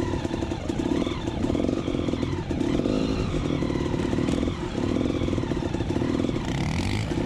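Two-stroke KTM 300 EXC enduro engine running at low revs while the bike creeps along as slowly as it can. The engine note swells and dips in uneven surges.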